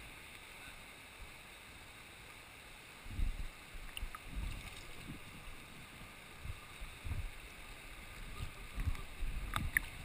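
River water sloshing and lapping against a half-submerged camera at the surface, with irregular low, muffled thumps of water on the housing starting about three seconds in.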